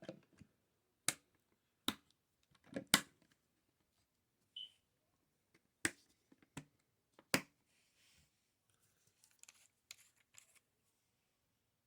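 Scattered sharp clicks and snaps, about five loud ones within the first seven and a half seconds, then fainter light taps and rustling.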